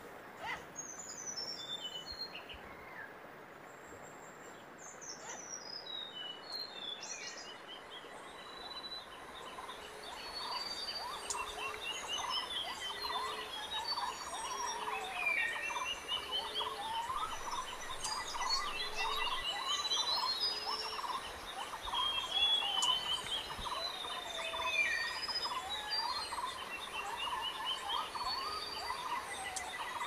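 A chorus of wild birds calling and singing together: falling whistled phrases, rapid chirping trills and short notes repeated over and over, getting busier and louder after about eight seconds.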